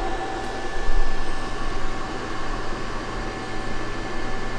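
ASMOKE AS300 pellet smoker's combustion fan running during the startup check, blowing air up through the fire pot while the igniter heats: a steady whir with a thin whine over it. A dull bump about a second in.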